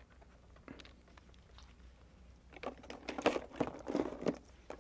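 Quiet taps, clicks and rustling of painting supplies being handled, mostly bunched together in the second half.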